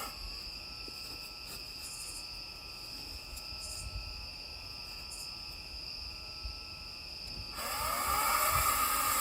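Insects drone steadily in the background. About seven and a half seconds in, a cordless electric chainsaw motor spins up with a rising whine and keeps running.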